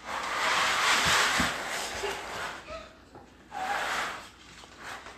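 Plastic laundry basket scraping across a concrete floor as it is pushed along, a long slide of about two and a half seconds and then a shorter one about three and a half seconds in.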